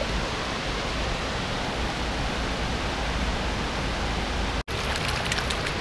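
Steady rushing of river water pouring over a low weir. It cuts out abruptly for an instant about three-quarters of the way through, then resumes with a few light ticks.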